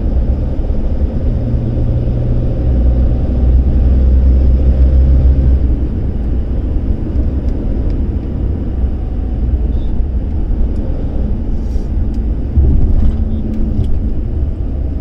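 Inside a moving car: steady low rumble of the engine and tyres on the road. A low drone swells over the first few seconds, then eases off.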